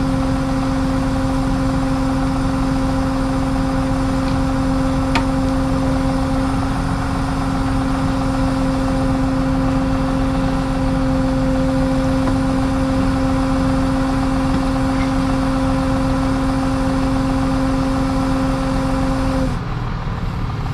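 Tow truck's hydraulic winch running under load with the truck engine, a steady whine over a low rumble while it pulls a car up out of the woods. The whine cuts off suddenly near the end, leaving a quieter rumble.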